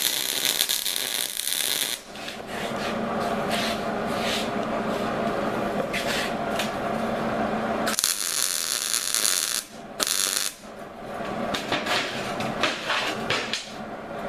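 Arc welding of steel hitch-stand pieces: a steady crackling sizzle laid down in several runs, with brief breaks between welds.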